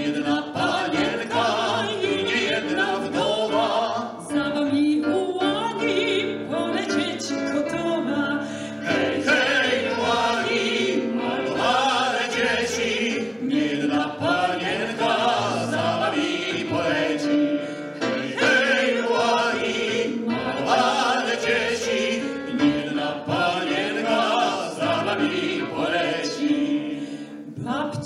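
A mixed vocal quartet of soprano, tenor and two baritones singing a song together in harmony, in a classical style.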